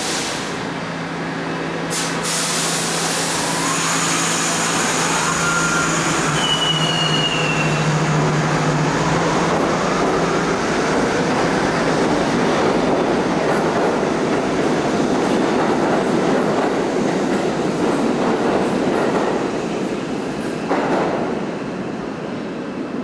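R68 subway train on the D line pulling out of an underground station. A low hum and rising motor whine sound as it accelerates, with wheels clattering over the rail joints and a brief high wheel squeal about six seconds in. The rumble fades in the last few seconds as the train clears the platform.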